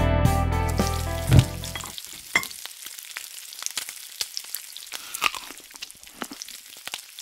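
Guitar music that ends about two seconds in, followed by a softer sizzle of food frying in a pan, with scattered sharp crackling pops.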